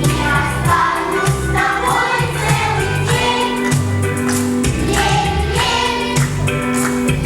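A group of voices singing a song over an instrumental accompaniment with a steady bass line.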